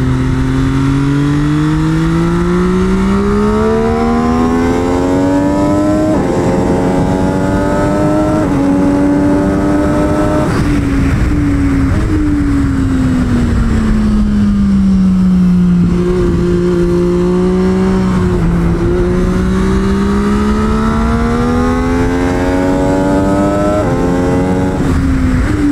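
MV Agusta F3 800 RC's three-cylinder engine under hard acceleration on track, its pitch climbing and dropping sharply at quick upshifts about six, eight and ten seconds in. It then falls away as the bike slows for a corner, climbs again, and shifts once more near the end, over steady wind rush.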